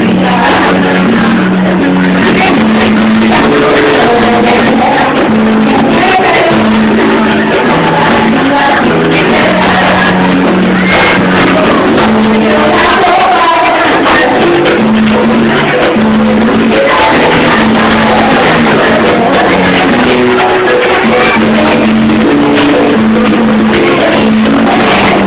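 Live band with keyboard and percussion playing a song, with girls singing along into microphones.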